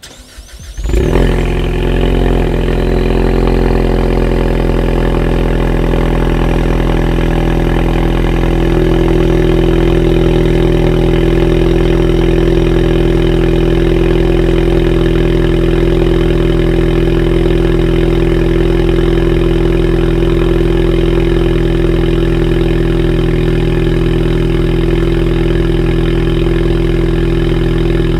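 2019 Ford Mustang EcoBoost's turbocharged 2.3-litre four-cylinder, heard at its quad tips through the active exhaust, on a cold start. It cranks briefly, catches about a second in, then settles into a loud, steady cold idle that firms up slightly about eight seconds in.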